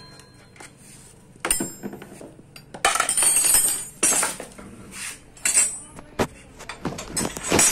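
Steel tools clinking and rattling against a scooter's front brake caliper and its bolts as an L-shaped socket wrench is worked on them. There are several sharp separate clinks, and a longer rattle about three seconds in.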